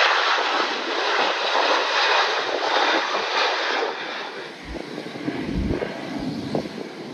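Airbus A330 airliner's jet engines roaring at takeoff power as it climbs out. About four seconds in, the roar gives way to a quieter steady hiss with low gusts of wind buffeting the microphone.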